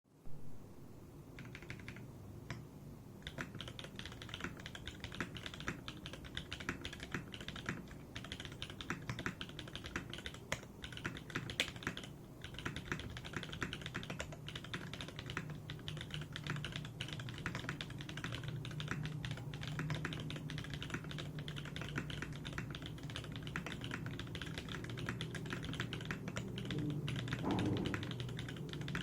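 Typing on a Smith + Rune Iron165 mechanical keyboard with lubed Everglide Dark Jade tactile switches, a carbon fibre plate and PBT keycaps: a fast, continuous stream of key clacks, after a few lone keystrokes at the start and with a brief pause about twelve seconds in.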